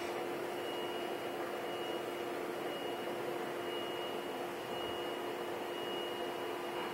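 Steady background hum and hiss with a constant high tone, unchanging throughout.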